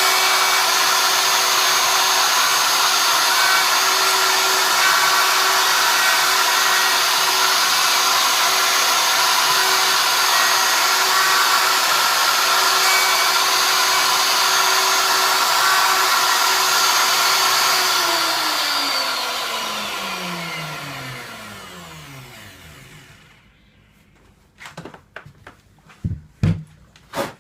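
Electric router running at full speed, routing a hinge recess in a wooden door through a hinge jig. About eighteen seconds in it is switched off and its whine falls in pitch and dies away over several seconds, followed by a few sharp knocks.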